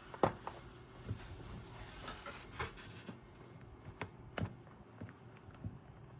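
Scattered light clicks and knocks of hands handling a disassembled router's board and cables, the sharpest one right at the start.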